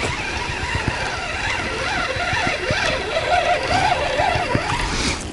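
Spinning reel being cranked to retrieve a wobbler: a wavering gear whine that rises and falls with the cranking speed, over a stream of small mechanical clicks.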